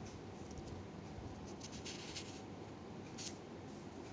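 Faint rustling and scraping from handling the book or camera, a few soft brief scratches over low room hiss.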